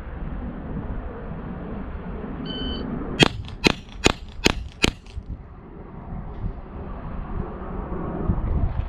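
A shot-timer start beep, then five quick pistol shots from a Gen 5 Glock 17 in 9mm, evenly spaced about 0.4 s apart: a timed string fired from the draw, with about 2.4 s from the beep to the last shot.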